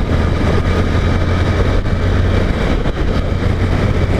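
Honda CG 150 Titan's single-cylinder engine running at a steady cruising speed, with a constant low hum under wind and road noise rushing over the microphone.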